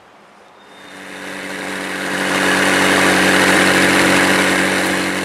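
McLaren 675LT's twin-turbo V8 engine growing louder over about two seconds to a loud, steady note that holds its pitch, easing off slightly near the end.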